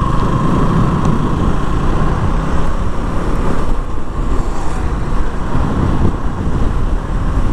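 KTM Duke motorcycle riding along a road, its engine and the rush of wind on the microphone blending into a steady noise.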